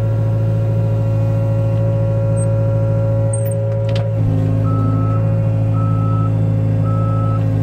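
Excavator's diesel engine running steadily, heard from inside its cab. About four and a half seconds in, a warning alarm starts beeping about once a second as the machine moves.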